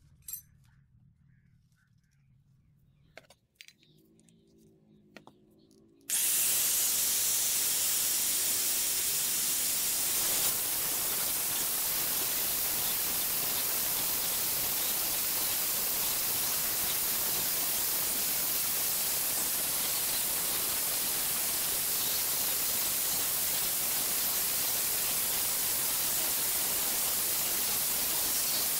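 A few small handling clicks, then about six seconds in an angle grinder starts suddenly and runs steadily. A steel chisel is ground against its abrasive disc, giving an even rushing noise.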